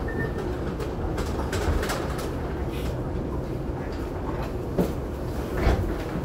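Steady low rumble of an electric commuter train heard from inside the carriage at a station platform, with scattered light clicks and knocks. Two sharper knocks come near the end.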